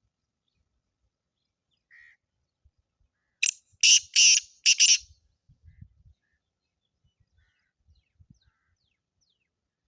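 Black francolin calling: one loud, harsh, grating phrase of four notes over about a second and a half, preceded by a faint short note.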